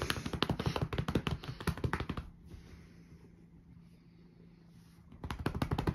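A hand patting a tabby cat's rump in quick runs of soft slaps, several a second. The patting stops about two seconds in and starts again near the end.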